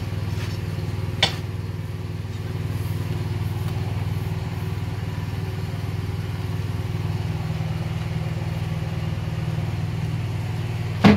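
An engine idling steadily with a low, even hum. A single sharp click comes about a second in, and a loud knock near the end.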